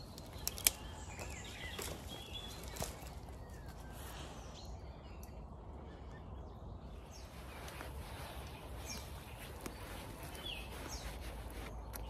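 Outdoor birdsong: scattered short chirps and calls from woodland birds. A couple of sharp clicks come about half a second in, and a steady low rumble runs underneath.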